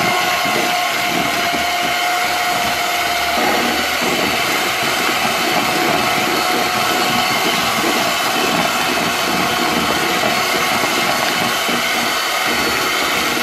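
Electric hand mixer running steadily, its beaters whipping egg yolks and icing sugar in a plastic bowl. A thin whine in the motor sound drops out a few seconds in.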